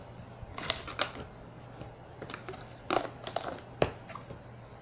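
Thin plastic slime tub being handled and closed: a scattered series of sharp plastic clicks and crackles.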